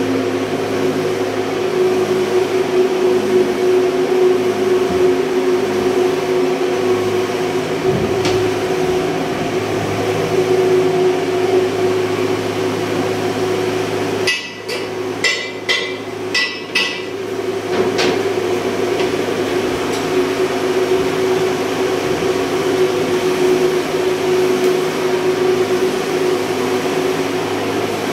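Steady drone of a ship's engine-room machinery, with a fixed humming tone over it. Around the middle comes a quick cluster of sharp metallic knocks from work on the valve fittings.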